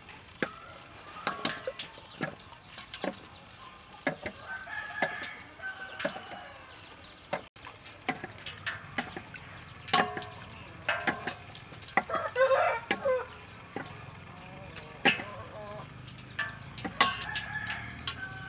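Chickens clucking and a rooster crowing, loudest about two-thirds of the way through, over scattered clicks and scrapes of a wooden spoon and hands against a stainless steel bowl.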